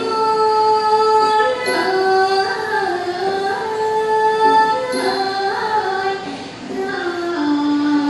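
A girl singing Thai classical song, the vocal part of a piphat ensemble: long held notes that bend and glide between pitches.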